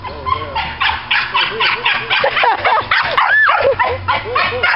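Small dogs barking at play in quick short yips while they chase each other, about four barks a second, with one longer, higher note a little past three seconds in.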